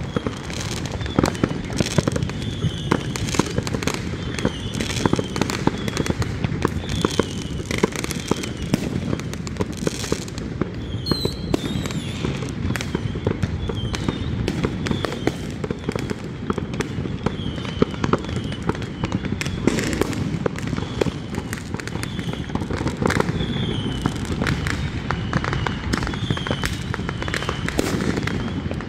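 Many fireworks and firecrackers going off at once, a constant dense barrage of overlapping bangs and crackles. A short high chirp recurs roughly every second through it.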